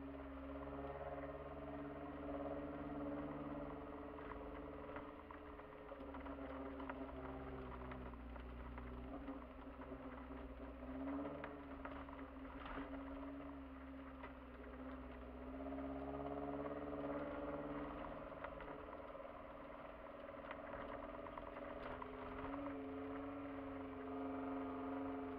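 Kia Sportage engine running under way, heard from inside the cabin, its pitch rising and falling every few seconds with the throttle, with light clicks and rattles from the car on a snow-covered track.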